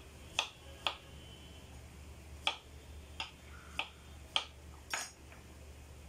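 Kitchen knife slicing through firm raw vegetable and knocking on a wooden cutting board, about eight sharp chops at an uneven pace, over a faint low hum.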